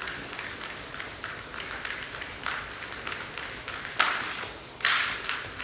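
Jump rope slapping a gym floor in quick, even ticks, about three a second, as it is turned under a seated jumper doing bum skips. Two louder slaps ring through the hall about four and five seconds in.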